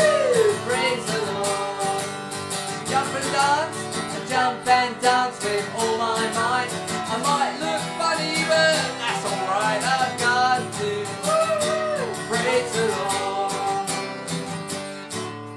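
Acoustic guitar strummed in a steady rhythm, with voices singing a lively children's praise action song over it; the music fades near the end.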